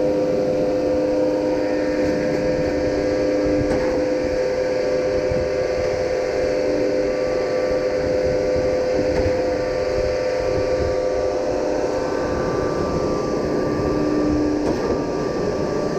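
Concrete pump running steadily while pumping concrete: a constant engine and hydraulic hum with a steady tone, and a second, lower tone that comes and goes.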